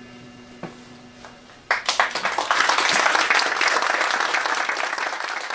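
The band's last chord ringing out and dying away, then audience applause starting suddenly about a second and a half in and carrying on steadily.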